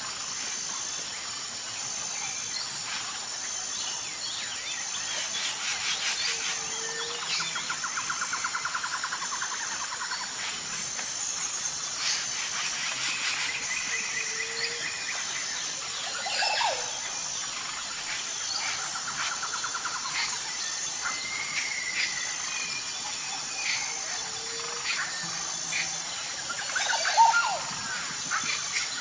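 Birds chirping and calling over a steady, high, pulsing insect trill. There are a few louder calls near the end.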